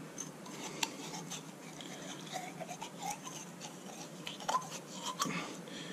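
Faint rubbing and scraping of fingers working rusty, oily sludge out of the metal housing of an electric window motor, with a few light clicks of metal.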